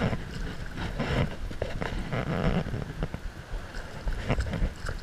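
Wind buffeting the microphone over water, with scattered short splashes and knocks as a hooked fish is drawn in to the surface.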